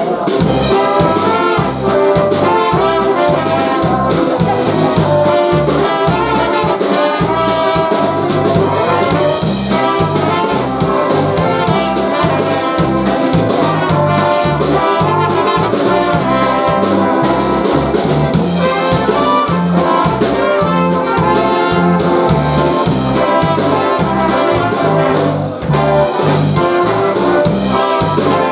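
Live polka band playing an instrumental polka: trumpets lead the melody over accordion and concertina, with a steady oom-pah bass and drum beat.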